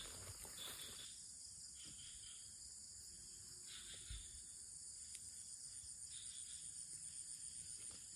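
Faint, steady chorus of crickets or similar insects, high-pitched, with a faint low thump about four seconds in.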